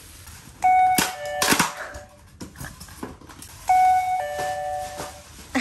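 Electronic two-tone ding-dong chime, doorbell-style, sounding twice about three seconds apart, each time a higher note dropping to a lower one. A few sharp knocks and clatter of handling come between them.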